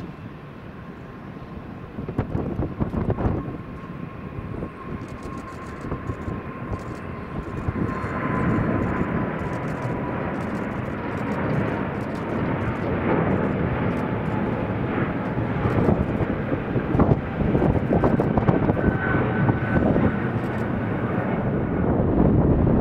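Boeing 777-300ER's twin GE90-115B turbofans at takeoff thrust: a steady whine slowly dropping in pitch over a deep rumble that grows louder about eight seconds in.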